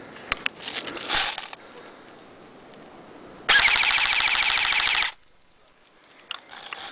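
Airsoft electric gun firing a full-auto burst of about a second and a half, a fast even rattle that stops abruptly. A few rustling crackles come before it.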